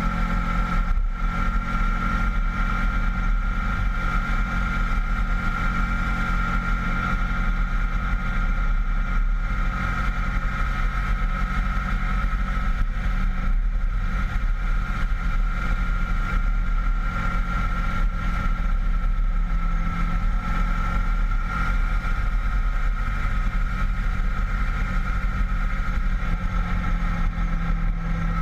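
Honda VFR800 V-TEC's V4 engine running at steady revs as the motorcycle cruises along, its even engine note mixed with a steady rush of wind and road noise, heard from a camera mounted on the bike.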